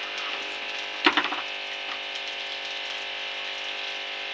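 Spiced potato slices sizzling steadily in hot oil in a steel pan, with a brief clatter of the metal spatula against the pan about a second in.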